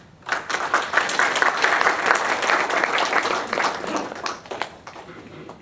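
An audience applauding. It starts about a quarter of a second in, keeps up a dense clatter of clapping for about four seconds, then thins out to a few scattered claps near the end.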